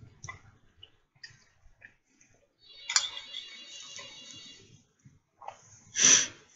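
Eating noises: soft, scattered mouth clicks and chewing sounds, with a short, louder burst of noise about six seconds in.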